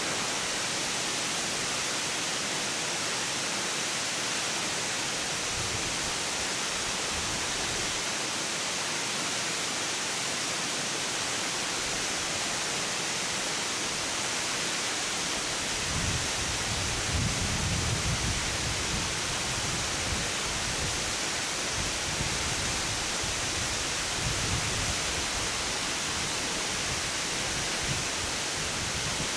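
Morricana waterfall's water rushing and splashing in a steady, even hiss. Low rumbling swells come and go from about halfway through.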